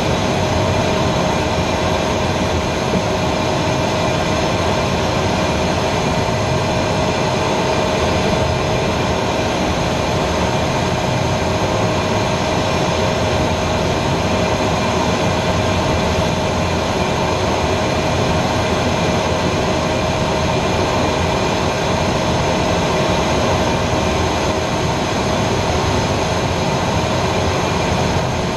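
Cockpit noise of an Aero L-29 Delfín jet trainer in flight: its single turbojet running steadily, a steady high whine over a constant rush of engine and air noise.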